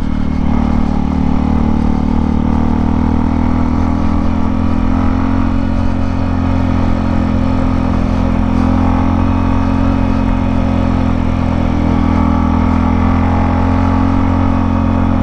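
Motorcycle engine running under steady load at an even pitch while climbing a winding mountain road.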